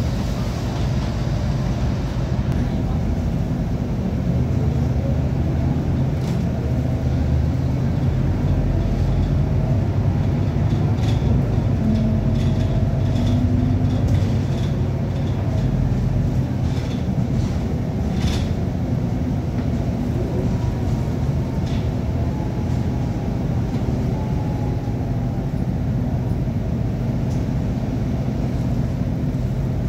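City bus engine and gearbox running on the move, heard from inside the passenger cabin: a steady low drone with a faint whine that rises and falls, and scattered light clicks and rattles. The owner says it doesn't sound right and suspects an engine or gearbox problem.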